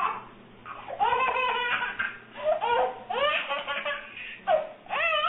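High-pitched laughing in about five bursts, the pitch bending up and down within each burst.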